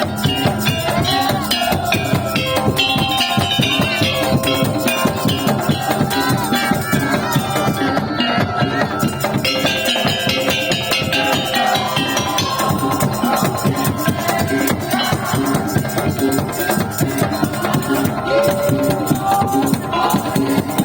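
Madurese tong-tong music: a percussion ensemble of wooden slit drums and drums playing a fast, dense, driving rhythm, with a melody line wandering over it, all without a break.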